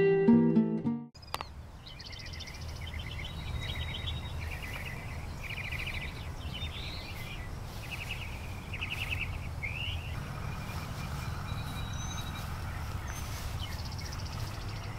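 Birds chirping and trilling in short repeated phrases over a steady low background rumble. Acoustic guitar music stops about a second in.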